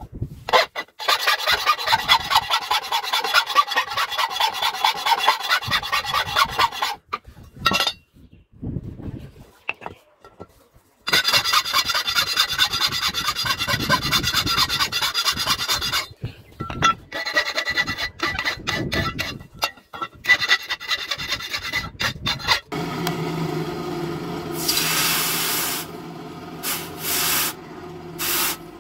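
A steel flat file rasping in quick back-and-forth strokes across the edge of a new hoe blade resting on an anvil, in three long runs with short pauses between. Then a steady low hum starts, and the hot blade edge hisses several times as it is dipped into water to harden it.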